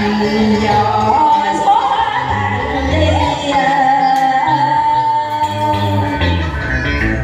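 A woman singing a slow Vietnamese duet song into a microphone over instrumental accompaniment, holding long notes and sliding up into several of them.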